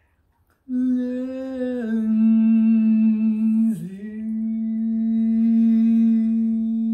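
A voice humming a long held note, starting just under a second in, stepping slightly lower about two seconds in, wavering briefly near the four-second mark, then held steady.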